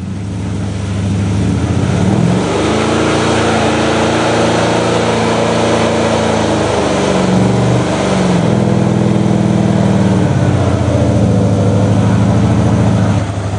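LT-swapped 1977 Chevrolet C10's V8 held at high revs through a standing burnout, the rear tyres spinning with a steady hiss. The engine climbs about two seconds in, eases off briefly past the middle, picks back up and drops away just before the end.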